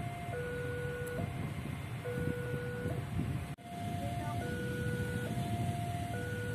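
Railway level-crossing warning alarm sounding its electronic two-tone signal, alternating steadily between a higher and a lower tone held a little under a second each: the crossing is closed for an approaching train. A steady low rumble runs underneath.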